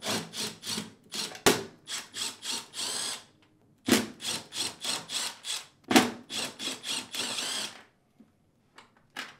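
Cordless drill/driver with a T15 Torx bit backing screws out of a dishwasher door's metal inner panel. The motor whine comes in runs of a couple of seconds, each starting with a sharp click and pulsing about three times a second. The whine stops about eight seconds in, leaving a few faint clicks.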